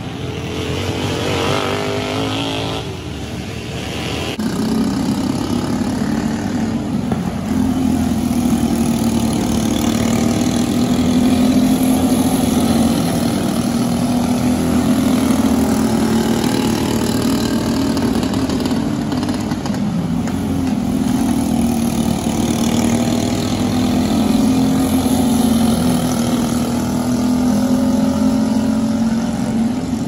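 Racing kart engines running at speed. Engine pitch climbs over the first few seconds, then settles into a steady, slightly wavering drone as the karts keep lapping.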